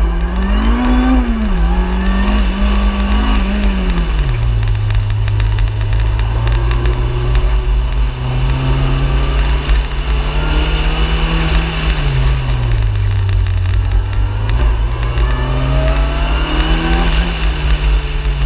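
Car engine driven hard through an autocross course, its pitch climbing, dropping and climbing again as the driver accelerates and lifts between cones, over a heavy constant low rumble.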